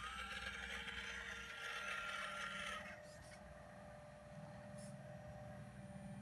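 Electric hydraulic pump of a radio-controlled CAT 336 excavator model whining as the boom is swung and lowered. The whine is loudest for about the first three seconds, then drops to a quieter steady hum.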